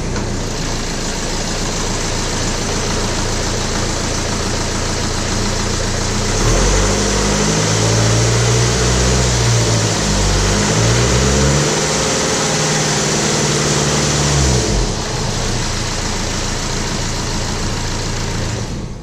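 BMW N47 four-cylinder diesel running with a loud timing-chain noise. The chain is stretched and slack. The engine idles, is held at higher revs from about six to fifteen seconds in (about 1500 and then 2000 rpm), then drops back to idle.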